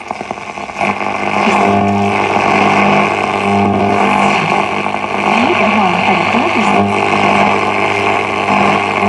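Sharp GF-828ST boombox on the AM band: a loud, steady hiss of static with a low hum through the speaker, getting louder about a second in. A few brief gliding whistles come through in the middle.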